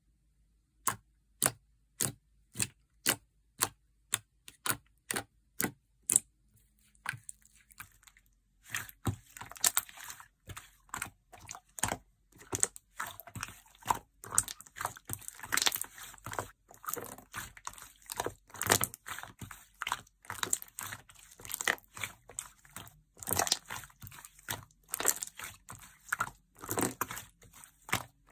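Sherbet slime being handled: for the first several seconds crisp clicking pops about twice a second, then from about eight seconds in a dense, continuous crackling and crunching as the slime is squeezed and folded.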